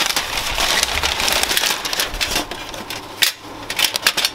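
Packaging and metal birdhouse parts being handled: a dense run of rustling with many small clicks and clatters, easing off briefly a little after three seconds in.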